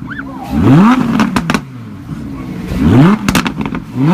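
2017 Audi R8's 5.2-litre V10 blipped twice. Each time the revs climb quickly and fall back, and a short burst of exhaust crackles and pops follows on the overrun.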